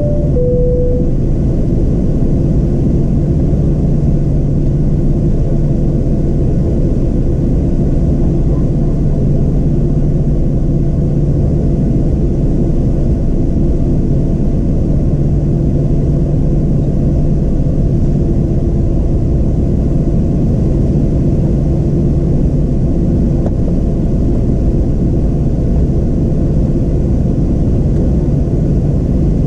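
Steady cabin rumble of a Boeing 737-700's CFM56-7B engines at low taxi power, heard from a seat over the wing, with a constant low hum. A high-low cabin chime finishes about a second in.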